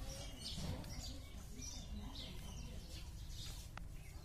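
Small birds chirping over and over in short high notes, over a steady low background rumble.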